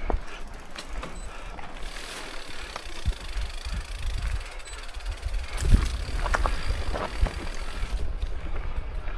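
Mountain bike descending a dirt singletrack: a steady rumble of wind on the microphone, with the tyres on the loose dirt and the bike rattling and clicking over bumps. A hard knock comes a little before six seconds in, followed by a few more clatters.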